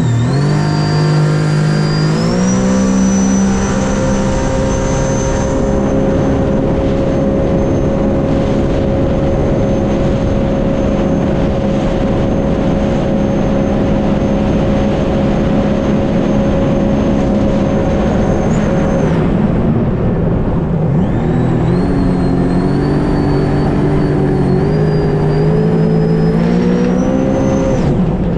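Supercharged Rotax engine of a Sea-Doo RXT-X jet ski at full throttle: it winds up over the first few seconds with a high whine rising alongside, then holds a steady top-speed pitch. About 19 s in the throttle eases off, and the engine winds up again toward the end.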